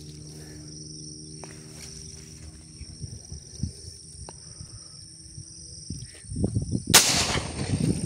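A single 12-bore shotgun shot about seven seconds in, a sharp loud blast that dies away over the next second, over a steady high-pitched insect drone.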